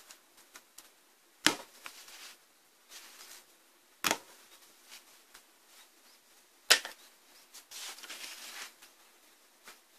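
Handling noise as gloved hands work over an opened power inverter's circuit board and case: three sharp clicks about two and a half seconds apart, with soft rustling between them.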